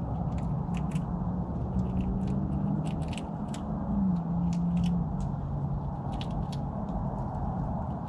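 Squirrel gnawing at a nut shell: irregular sharp clicks, two or three a second. Under it runs a steady low hum that drops in pitch about four seconds in.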